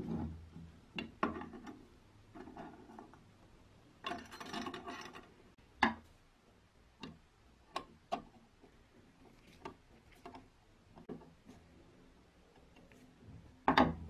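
Chrome-plated metal parts and screws of an antique Peugeot hand coffee grinder being fitted onto its wooden base: scattered sharp clicks and taps, a short scraping rattle about four seconds in, and a screwdriver turning a screw into the cover.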